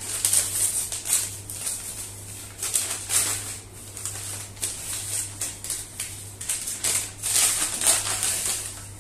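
Brown paper takeaway bag being torn open and unpacked by hand: uneven crinkling and rustling of the paper.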